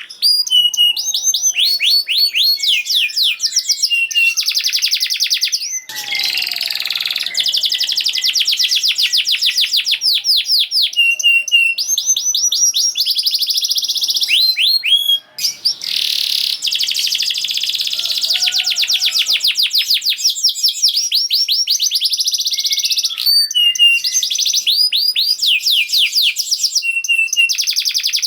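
Domestic canary singing a fast, dense song: long rapid rolls of repeated high notes and trills with only brief breaks. This is 'gacor' speed song of the kind played to coax other canaries into singing.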